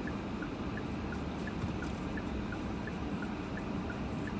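Car cabin road and engine noise while driving, with a turn-signal indicator ticking steadily, about three ticks a second.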